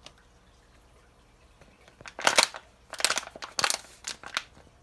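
Thin clear plastic being crinkled and handled in several irregular bursts, starting about two seconds in.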